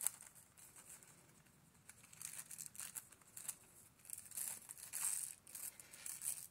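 Crinkling and rustling of a small piece of Press'n Seal plastic wrap being handled, in short irregular bursts, with a sharp click right at the start.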